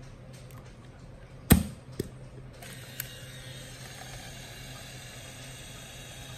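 Hasselblad XPAN II's back door snapping shut with a sharp click, a second smaller click half a second later, then the camera's film-transport motor starting up and whirring steadily as it winds the freshly loaded 35 mm film on.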